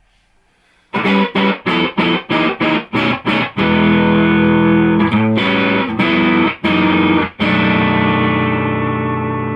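Electric guitar played straight into a low-power single-ended EL84 valve amp with a 6N3P preamp tube and no effects. About a second in comes a run of quick, choppy chord stabs, then held chords; the last chord is left ringing and slowly dies away.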